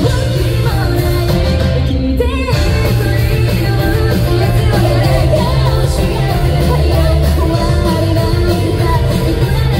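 Live rock band playing loudly, with a female lead voice singing over heavy bass, drums and guitar.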